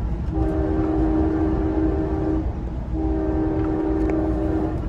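Train horn sounding two long blasts of about two seconds each, with a third starting near the end, heard from inside a coach of the Amtrak Pacific Surfliner. Under the horn runs the steady low rumble of the wheels on the rails.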